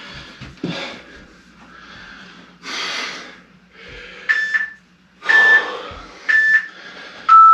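Interval timer countdown: three short high beeps about a second apart, then a longer, lower beep near the end, signalling the change of interval. Between and under them, the heavy panting breaths of a man exercising hard.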